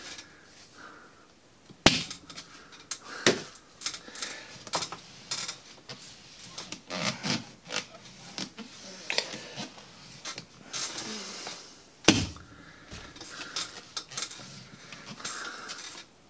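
Lacrosse stick pocket being pounded and worked by hand: irregular knocks and taps on the mesh and plastic head, mixed with scratchy rustling of the mesh. The sharpest knocks come about two seconds in, again a second later, and near twelve seconds.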